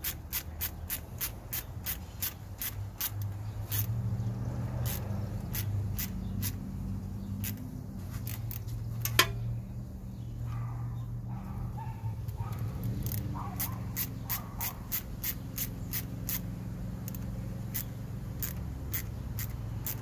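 Ratcheting screwdriver with a socket bit clicking in quick runs of about four or five clicks a second as it tightens radiator hose clamps, pausing briefly in the middle, with one sharper click about nine seconds in. A low steady hum sits underneath.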